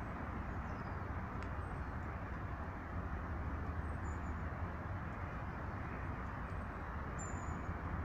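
A steady low outdoor rumble with a hiss above it, and several faint, thin, high-pitched calls from small birds, each very short and dropping in pitch, the clearest near the end.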